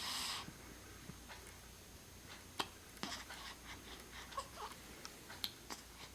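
A pet's soft sounds: a short breathy huff at the start, then a few faint, sharp clicks scattered through the rest.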